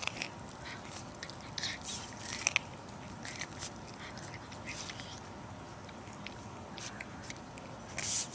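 A cat chewing corn kernels off the cob: irregular short crunching bites, with a cluster around two seconds in and a louder one near the end.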